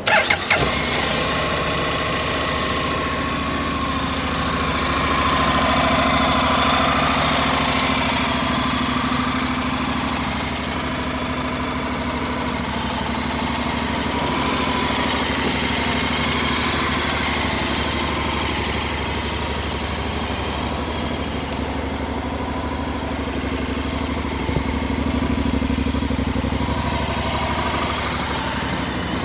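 2020 Honda NC750X's 745cc parallel-twin engine starting with a short burst and then idling steadily.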